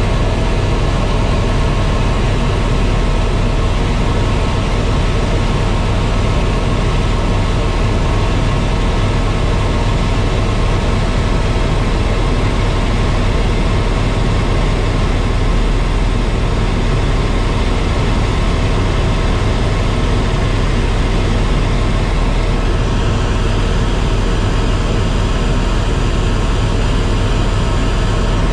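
Helicopter in flight heard from inside the cabin: a loud, steady drone of engine and rotor over a low rumble, with a few steady whining tones.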